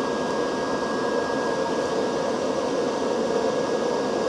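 Steady fan-like whir and hiss, with a thin steady high-pitched whine over it.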